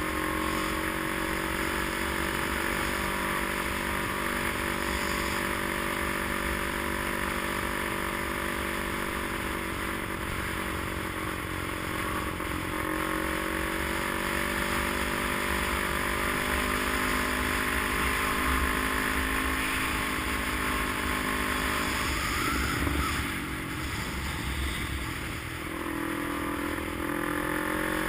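A vehicle engine running steadily under road noise while driving. About 22 seconds in the engine note breaks and dips briefly, as in a gear change or slowing, then settles again.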